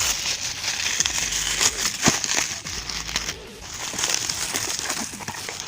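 Packaging crinkling and rustling as it is handled and opened, with scattered sharp crackles throughout.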